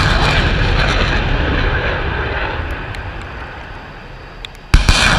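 Rockets launching from an M142 HIMARS launcher. The rushing roar of one rocket motor fades over about four seconds as it climbs away, then the next rocket fires with a sudden loud blast near the end.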